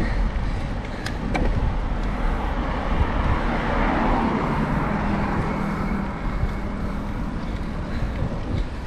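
Wind and road noise on a road bike's handlebar-mounted camera while climbing. A motor vehicle's engine swells and passes around the middle, with two light clicks about a second in.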